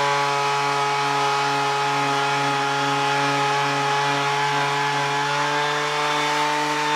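Electric power sander running at steady speed, sanding down body filler on a car body panel: an even motor hum and whine over the rasp of the abrasive.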